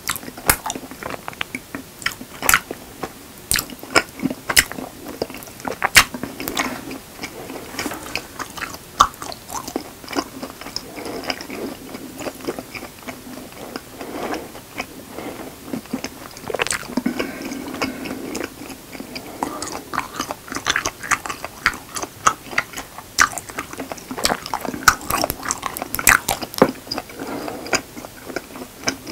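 A person chewing a mouthful of raw honeycomb: irregular sharp wet clicks and crackles throughout.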